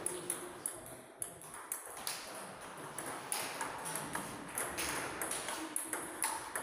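Table tennis balls knocking on bats and tables: many sharp, irregular clicks, several a second, echoing in a large hall.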